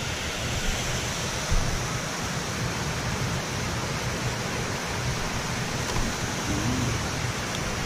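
Steady rushing of flowing river water, with an uneven low rumble underneath.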